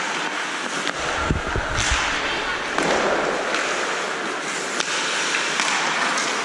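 Ice hockey play on the rink: a steady scrape and hiss of skates on ice with scattered sharp clacks of sticks and puck, and a few low thuds about a second and a half in, over background shouting.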